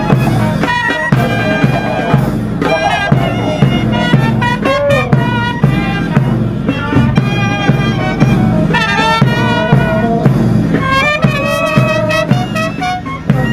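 Brass band playing a march, trumpet-like melody over a steady drum beat.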